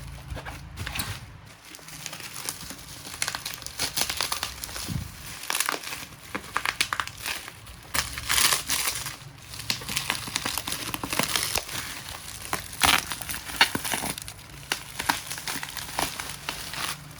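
Keyboard packaging being handled and unwrapped: irregular crinkling and rustling of plastic wrap and paper, with scattered clicks and knocks of cardboard and parts being moved.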